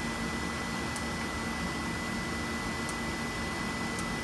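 Steady running noise of an Eaton 9E 10 kVA online UPS: cooling fans with a thin high electronic whine and a low hum, with a few faint clicks from its front-panel button being pressed.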